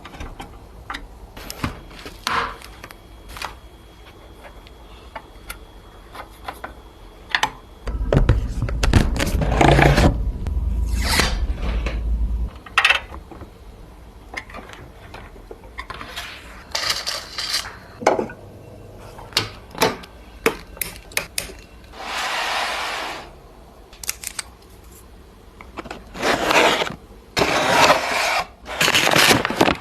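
Clicks, knocks and scrapes of PC hardware being handled and fitted into a mini-ITX case, with several longer scraping stretches and a heavy handling rumble about a third of the way in.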